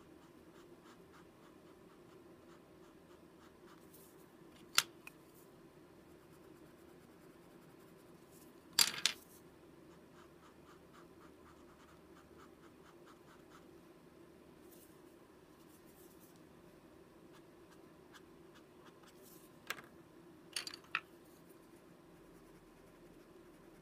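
Paper blending stump rubbing over coloured pencil on card stock in faint, short scratchy strokes. A few sharp clicks and taps stand out above it, once about a fifth of the way in, a double click near the middle and a cluster near the end.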